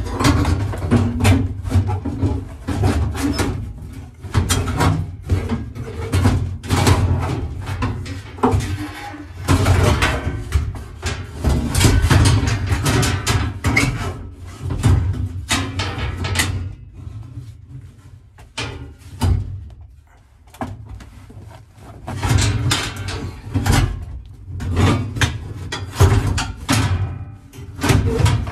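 Sheet-metal package tray being worked into place around a car's roll bar: repeated clanks, knocks and scrapes of the metal panel against the tubing and body, with a quieter spell a little past the middle.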